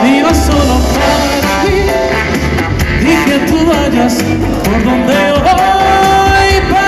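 Amplified live music: a male crooner singing into a handheld microphone over big-band-style backing music, with held melody notes near the end.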